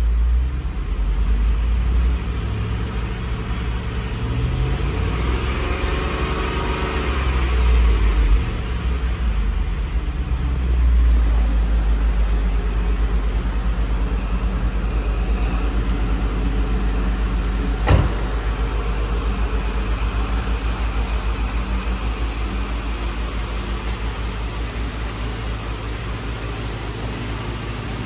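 2004 Ford Thunderbird's 3.9-litre V8 running at idle, its pitch rising and falling a couple of times in the first ten seconds before settling into a steady idle. A single sharp knock about eighteen seconds in.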